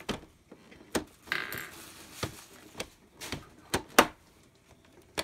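Hard plastic toy-playset parts being handled: half a dozen sharp clicks and knocks, with a brief rattle just after the first second and the loudest knock about four seconds in.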